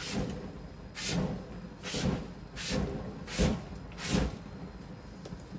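Cooking oil sprayed in about six short hissing bursts onto the very hot grates of a six-burner gas grill, with flames flaring up from the oil.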